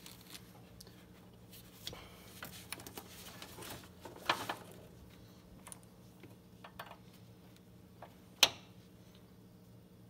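Faint handling sounds of gloved hands working a turn signal bulb and its wiring connector inside tight plastic headlight and fender-liner parts: scattered small plastic clicks and rustles, a brief scrape about four seconds in and one sharp click over a second before the end. A faint steady hum sits underneath.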